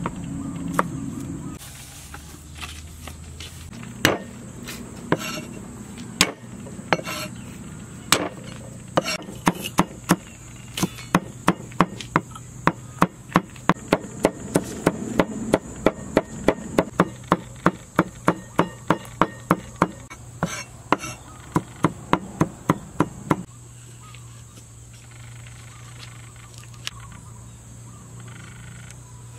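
Knife chopping garlic on a wooden chopping board. A few scattered knocks come first, then an even run of about three chops a second that stops several seconds before the end.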